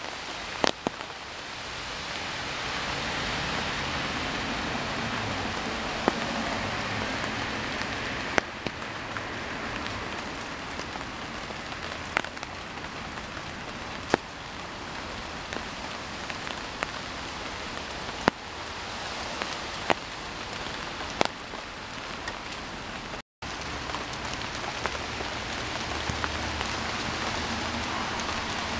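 Steady rain falling, with louder single drops ticking close by every few seconds. The sound cuts out completely for an instant about two-thirds of the way through.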